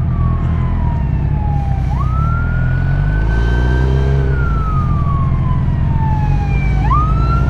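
Police siren wailing: the tone climbs quickly twice, about five seconds apart, and falls slowly between the climbs. Underneath is the steady low rumble of the sportbike riding at highway speed.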